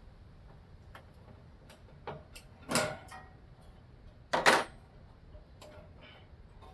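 Irregular clicks and knocks of a box fan's blade being pried at by hand, scattered and uneven, with the loudest two knocks in quick succession about four and a half seconds in.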